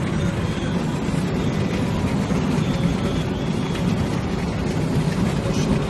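Car travelling at highway speed, heard from inside: a steady, even road and wind noise with a low rumble.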